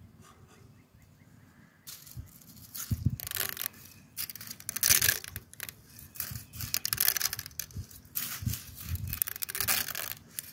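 Metal slotted spatula scraping against a stainless steel pot and prodding dry spaghetti, the stiff strands rattling and clicking against the rim. The scraping and rattling start about two seconds in and go on in irregular bursts.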